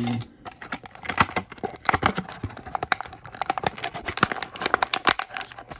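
Clear plastic blister pack crackling and clicking irregularly as fingers bend and pry it open to free a die-cast toy car.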